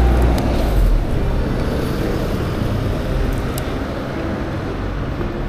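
Steady low rumble of city road traffic, heaviest in the first second.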